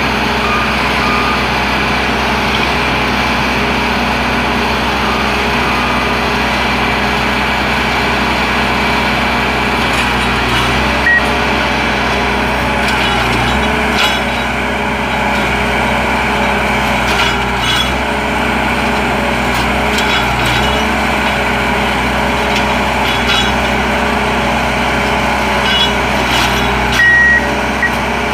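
Diesel engines of rail-mounted track maintenance machines running steadily, with a few metallic knocks from a machine's hydraulic workhead from about ten seconds in. A few short high beeps, the last near the end.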